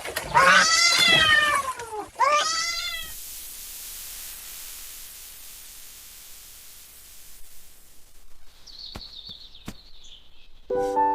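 Domestic cat meowing twice: two long meows, each rising and then falling in pitch, one right after the other in the first three seconds, followed by a quieter stretch with a few faint clicks.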